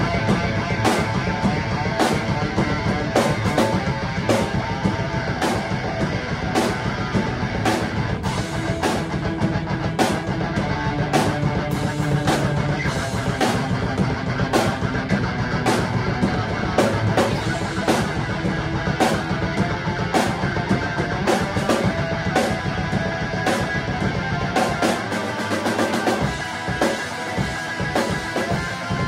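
Rock band jamming: a drum kit played hard, with steady cymbal and snare hits over bass drum, under sustained electric guitar. The low end thins out for a moment a little before the end.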